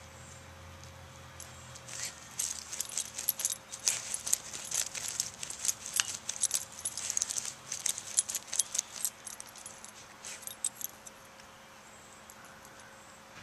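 A puppy digging in loose soil with its front paws: a fast, irregular run of scratching and scrabbling that starts about two seconds in and dies away near the end.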